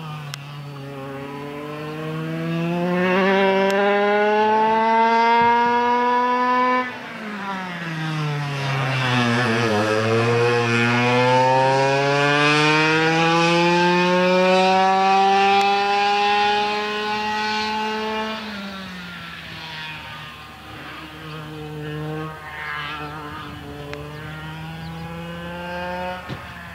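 Go-kart engines revving: a buzzing engine note that climbs slowly in pitch and drops sharply twice, about seven seconds in and again near eighteen seconds, the pattern of karts accelerating along a straight and lifting off for a corner.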